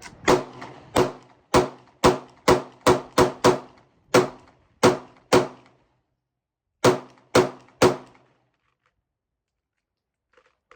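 A pistol fired fourteen times at a steady pace. Eleven shots come about half a second apart, then after a short pause three more.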